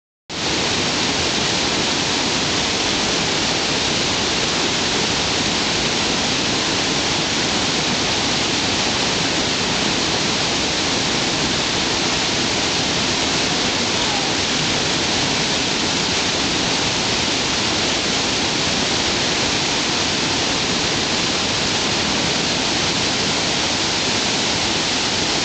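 Steady rush of large whitewater rapids in a river running at very high water, over 11,000 cfs.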